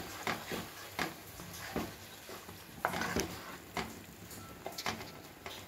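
A spatula stirring and scraping thick coconut masala paste around a nonstick pot as the masala is sautéed, with short soft scrapes and knocks at an uneven pace.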